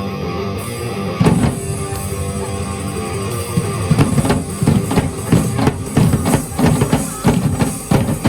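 Loud rock-style music with a drum kit and guitar; from about halfway the drums break into a fast, dense run of hits.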